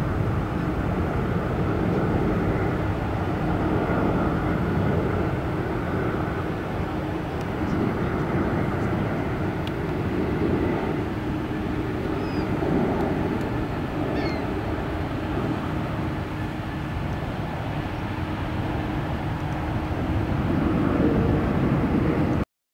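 McDonnell Douglas MD-11 trijet's engines running on final approach and into the landing flare: steady jet engine noise with a low rumble. It cuts off abruptly near the end.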